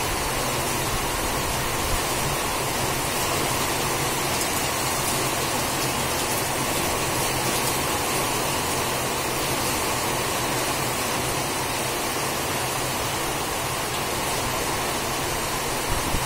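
Heavy downpour: a steady, even hiss of rain, with water pouring off the edge of a corrugated roof.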